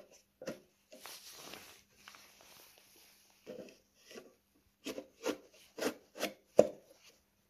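Wooden-cased Ford Model T trembler coil being slid into its metal coil box: wood scraping along the box for about a second and a half, then a run of sharp knocks as the coil is pushed and seated against the contacts, the last knock the loudest.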